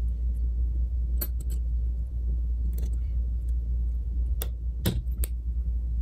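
Scattered sharp metallic clicks and taps, about seven at uneven intervals, as steel needle-nose pliers hook coil springs onto the governor weight plates of a Ford Model B distributor. A steady low hum runs underneath.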